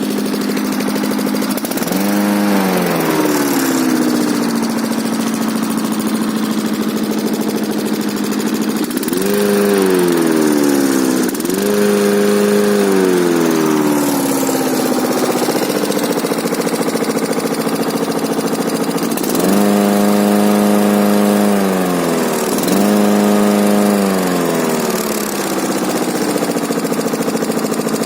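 Engine of a K800 machine, just repaired, running at idle and blipped up about five times, each rev rising quickly and then sinking back to a steady idle.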